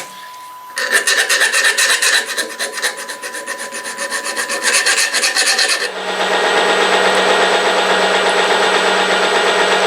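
A hand file rasping on the corners of a square drive-shaft knuckle joint, taking the sharp edges off, in fast even strokes. About six seconds in it turns to a steadier, continuous rasping noise over a low steady hum.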